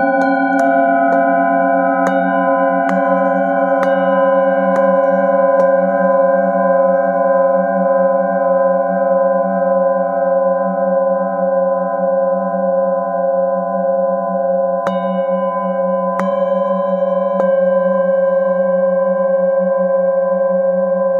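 Metal singing bowls struck one after another with a padded mallet, about once a second at first, then left to ring together in a sustained, slowly wavering chord of several tones. Three more strikes come in later, renewing the ringing.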